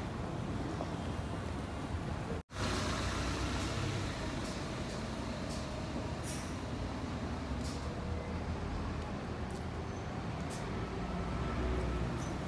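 City bus diesel engines idling, a steady low rumble, with a few short high hisses of air. The sound cuts out for an instant about two and a half seconds in.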